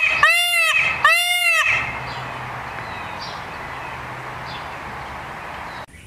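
Indian peafowl (peacock) giving a series of loud, nasal, repeated calls, two more in the first two seconds. Then a steady background hiss with a few faint bird chirps.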